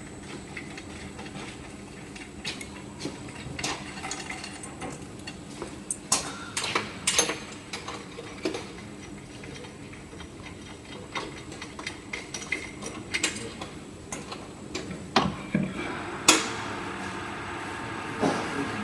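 Scattered metallic clinks and knocks of tools and metal parts being handled while a hot-melt glue labelling machine is taken apart. The knocks come irregularly over a faint steady hum, with louder ones about a third of the way in and again near the end.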